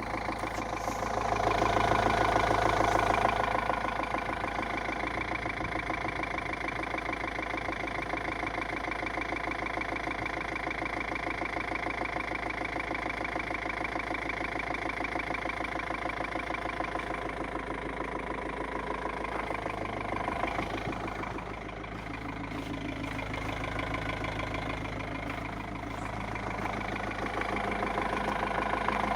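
Mercedes-Benz W210 2.2 CDI four-cylinder diesel idling from a cold start, with a steady rhythmic knock in the engine that the owner cannot place.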